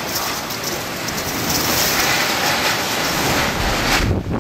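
Typhoon eyewall wind with driving rain: a loud, steady rushing noise with no pauses, shifting to a deeper rumble near the end.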